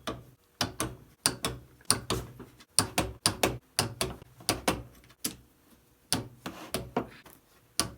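A run of sharp, uneven knocks and taps, about two or three a second, from hands and tools working on a snowmobile engine's top end during a rebuild.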